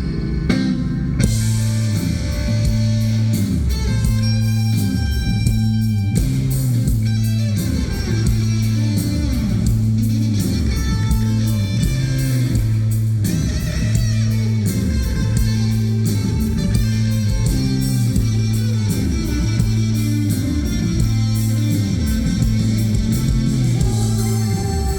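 Live rock band playing an instrumental passage: electric guitars over a repeating bass line and a steady drum beat, with no vocals.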